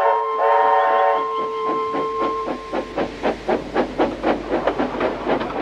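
Steam locomotive whistle sounding two short multi-tone blasts, then the engine's exhaust chuffing in rapid, even beats, several a second, with held music notes fading out underneath.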